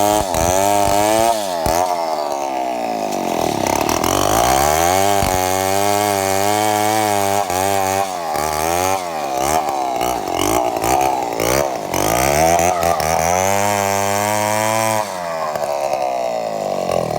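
Two-stroke chainsaw running, its engine speed rising and falling over and over with several short dips. The owner says this saw is not in good running condition.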